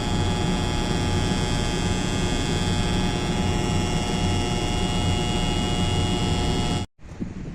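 Faulty contactor on a Zamil package air conditioner humming loudly with a steady mains buzz, the sign of a failing contactor. It cuts off suddenly about seven seconds in.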